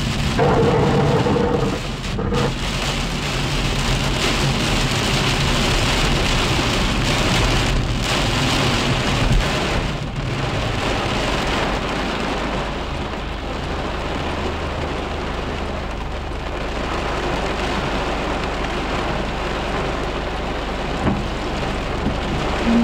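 Heavy downpour drumming on a car's windshield and roof, heard from inside the cabin as a steady, dense hiss of rain.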